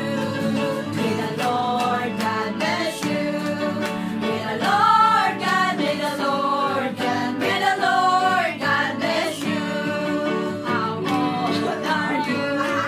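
Several women singing a song together, accompanied by an electronic keyboard.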